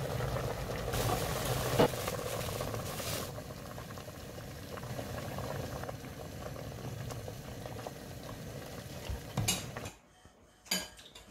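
Budae-jjigae (Korean army stew) boiling hard in a stainless steel pot, a steady bubbling with a sharp click about two seconds in. The bubbling cuts off about ten seconds in, and a few short knocks follow near the end.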